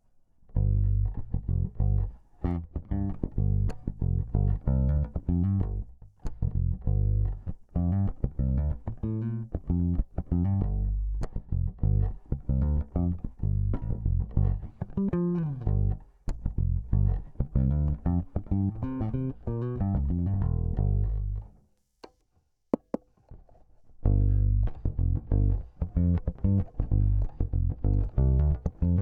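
1960s Teisco Beatle electric bass played in runs of plucked notes, recorded direct with a little compression and no EQ. A note slides in pitch about halfway through. Playing stops for about two seconds about three-quarters through, with a couple of clicks, then starts again.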